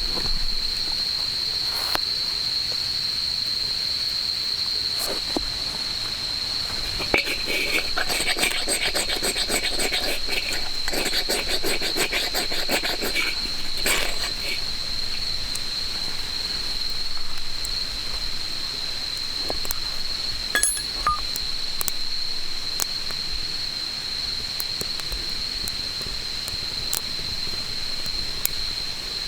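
An insect's continuous high trill at one steady pitch, with scattered crackles and clicks of a campfire, thickest for several seconds just before the middle.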